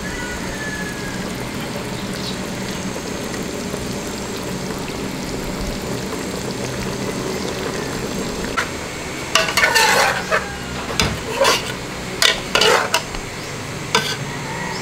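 Pork belly adobo simmering in a metal pot with a steady hiss, then, from a little past halfway, a metal ladle scraping and clinking against the pot as it is stirred, a quick run of sharp clinks.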